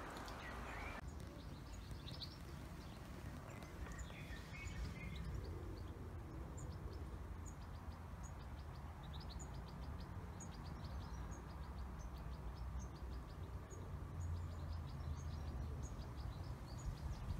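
Quiet outdoor garden ambience: small birds chirping repeatedly in the background over a low steady rumble.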